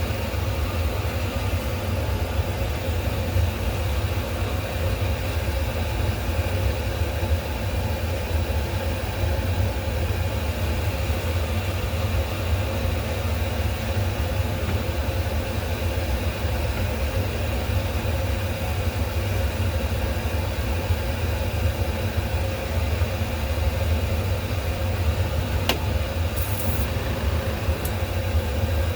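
Steady low mechanical hum with a constant rumble, like a motor or fan running, with two sharp clicks and a brief hiss near the end.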